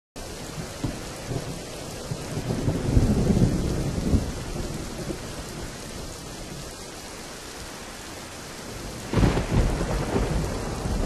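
Steady rain with thunder. A long, low rumble swells about three seconds in, and a second, more sudden peal starts about nine seconds in.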